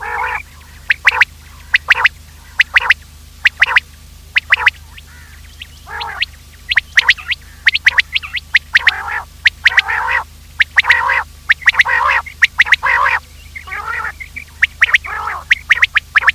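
Quail calling: sharp call notes repeated in quick groups, with longer, harsher calls in the middle, over a steady low hum.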